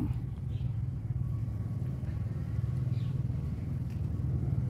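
A steady low motor hum runs at an even pitch throughout, over the soft pour of water from a plastic watering can onto potting soil.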